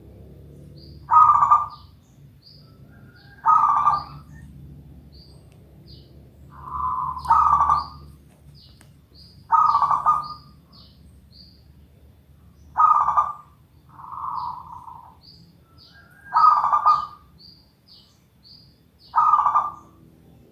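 Zebra dove (perkutut) cooing over and over, one short low phrase about every two to three seconds, in a long unbroken run of song.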